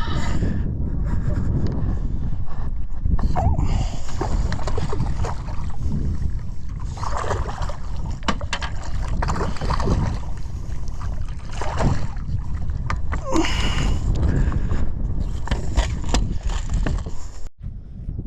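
Wind buffeting the microphone on a small boat, a steady heavy rumble with water sloshing and scattered knocks, cut off abruptly just before the end.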